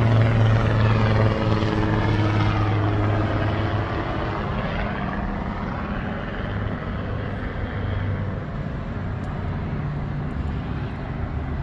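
An aircraft passing overhead: a steady engine drone that slowly fades over several seconds.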